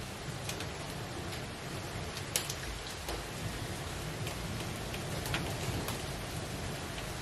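Rain falling steadily in a storm, with a few sharp taps scattered through it.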